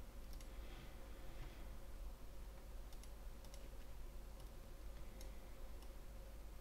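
Faint computer mouse clicks, a handful of short single clicks spaced a second or so apart, over a faint steady hum.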